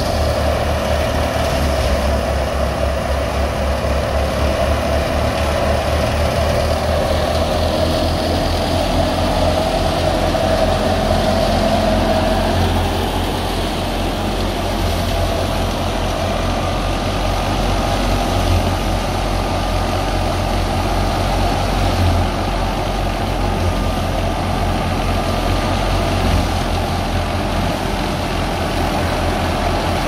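Tractor engine running steadily under load, driving a wheat thresher through its power take-off, with the thresher's drum and fan whirring as straw is fed in.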